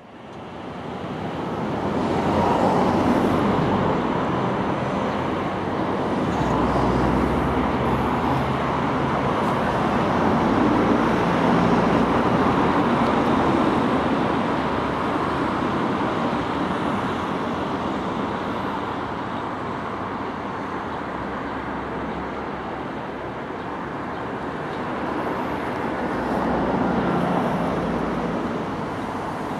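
Steady roar of traffic and rail-yard noise with a low hum underneath, fading in at the start and holding level throughout.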